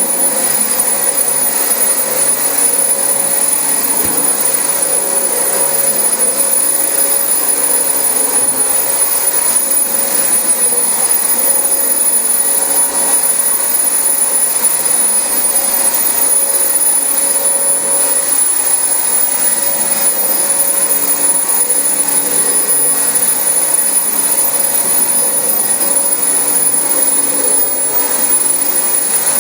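Dyson DC25 bagless ball upright vacuum cleaner running steadily over carpet: a constant rush of air with a high, steady motor whine.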